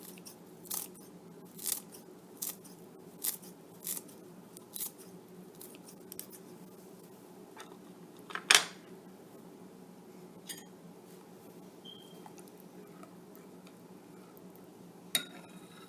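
Kitchen scissors snipping cilantro, a run of short crisp snips about one a second, then a few scattered clicks, one louder about halfway through.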